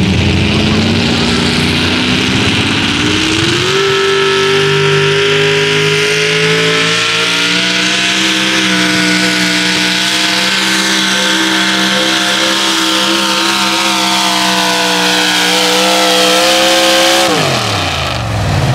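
Supercharged 4x4 pulling truck's engine at full throttle through a pull. The revs climb steeply over the first few seconds, then hold high and creep slowly upward. They drop sharply about a second and a half before the end as the driver lets off at the end of the pull.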